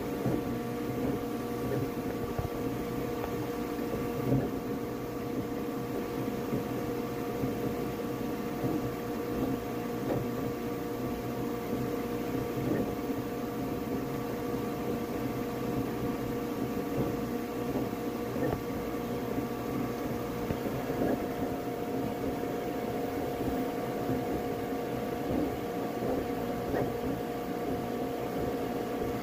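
Flashforge Adventurer 5M Pro 3D printer running mid-print: a steady mechanical hum of fans and moving print head with several held tones, broken only by a few faint ticks. The highest of the tones drops out about two-thirds of the way through.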